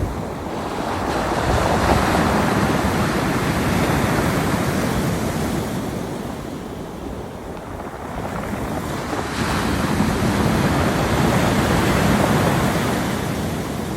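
Sea surf washing on the shore in two long surges, with a quieter lull between them. Some wind buffets the microphone.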